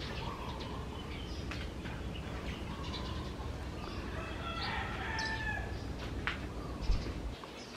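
A rooster crowing once, about four and a half seconds in, over a steady low rumble that stops shortly before the end.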